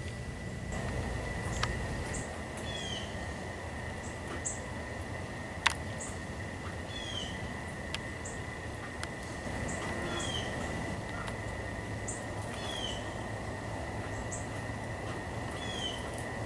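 Garden birds singing, one short phrase of a high note and a down-slurred note repeated about every two seconds, over a steady high whine and low outdoor rumble. A single sharp click sounds about a third of the way in.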